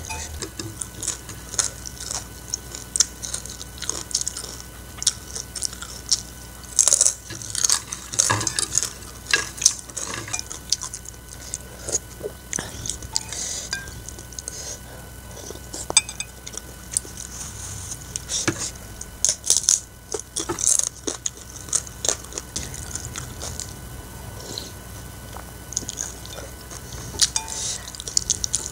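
A metal spoon and fork clinking and scraping against a ceramic bowl of instant noodle soup. Close-miked mukbang eating sounds of slurping and chewing come between the clicks, which are short and irregular.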